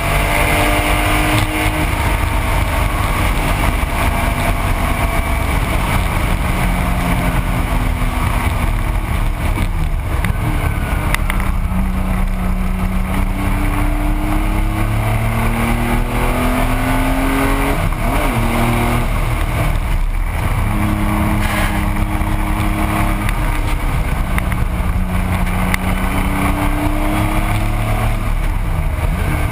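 1985 Porsche 911's air-cooled flat-six running hard through a racing lap, heard from inside the car: its pitch climbs in long pulls and drops back several times as gears change and the car slows for corners, over steady wind and road noise.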